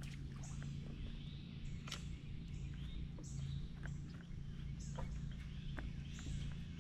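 Faint bird calls: short high notes repeating about once a second, over a steady low hum, with a few light clicks.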